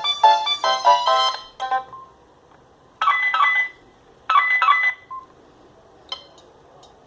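Alcatel OT-757 mobile phone ringtones through the phone's small speaker: a quick electronic melody ends in the first second and a half, then a new tone gives two short ringing bursts about a second apart. A single click comes near the end.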